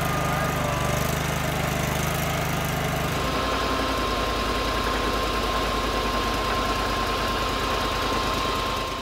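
Small engine of a compact utility loader running steadily, with a thin steady whine above it; the engine note changes abruptly about three seconds in.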